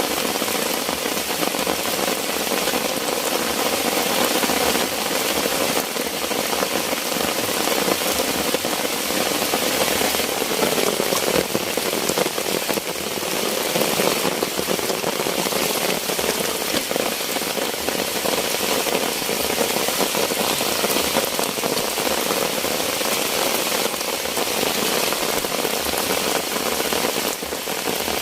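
Heavy rain falling steadily as a dense, even hiss of drops.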